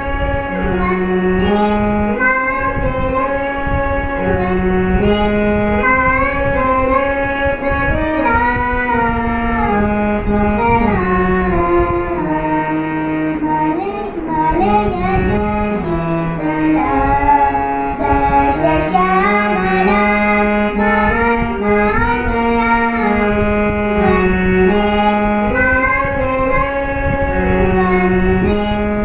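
Harmonium playing a slow melody in held, reedy notes, with a child's singing voice over it.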